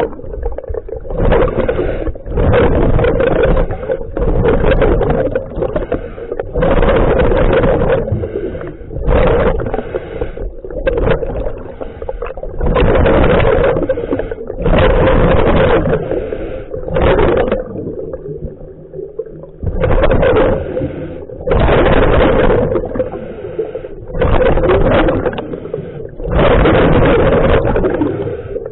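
Scuba regulator breathing heard underwater: loud bursts of exhaled bubbles every second or two, with a longer pause about two-thirds of the way in, over a steady hum.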